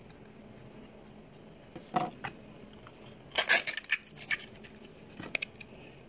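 Hard plastic toy capsule and miniature pieces handled on a tabletop: a couple of sharp clicks about two seconds in, then a louder cluster of clicks and rattles a second and a half later, and a few more clicks near the end.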